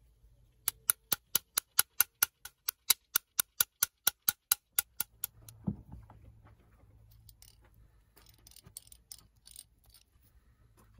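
Restored hand drill's bevel gear and pinion turned by hand, clicking evenly about five times a second for several seconds. Then one dull thump as the drill is set down on the wooden bench, followed by faint handling noises.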